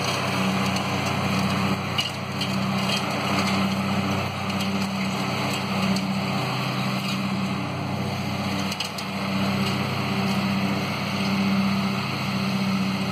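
Riding lawn mower's small engine running steadily under load with the deck cutting grass, its hum swelling and fading gently as it moves. A few faint clicks sound about two to three seconds in and again near nine seconds.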